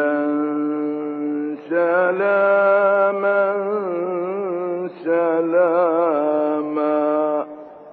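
A man's voice in melodic, drawn-out Quran recitation. He holds long notes with wavering ornaments, in three phrases with short breaths about one and a half seconds and five seconds in, and stops shortly before the end.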